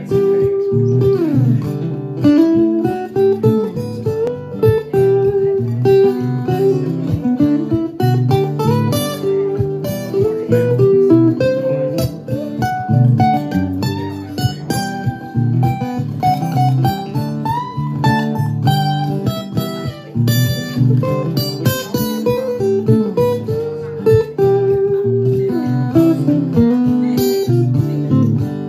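Martin acoustic guitar played solo: a continuous run of picked notes and chords over a steady bass line.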